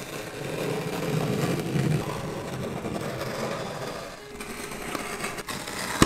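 Tiny meat-cleaver blade slicing along the packing tape of a cardboard box: a continuous scraping, tearing sound, loudest in the first two seconds and easing off after about four, with a sharp click at the end.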